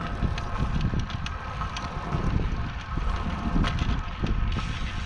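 Wind buffeting the microphone of a camera riding along on a moving road bike, over a steady low rumble from the tyres rolling on the trail, with a few faint ticks.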